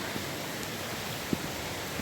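Steady rushing of a creek's flowing water, with a single sharp thump a little past halfway.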